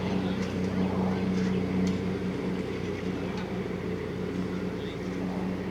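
Heavy farm machinery engine running steadily at an even pitch, a constant low hum with no revving.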